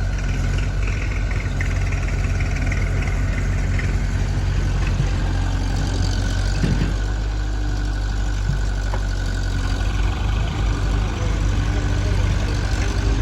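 Heavy diesel engine running steadily, with a faint steady whine above the engine note and a few light knocks near the middle.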